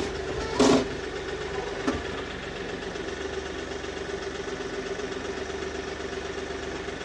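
Kioti DK6010 compact tractor's diesel engine running steadily as the tractor moves off with a board on its pallet forks. There is a loud clunk just under a second in and a smaller knock about two seconds in.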